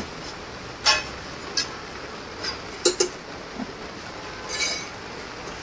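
Metal cooking utensils clinking at a dosa griddle: a steel ladle and plates give about half a dozen short, sharp clinks over a steady background hiss.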